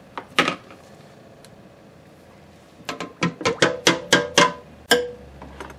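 Stick blender worked in short bursts in a stainless steel pot of cold process soap batter, blending in brown mica. There is one sharp burst about half a second in, then a quick run of about a dozen sharp pulses near the end, with a short ringing tone.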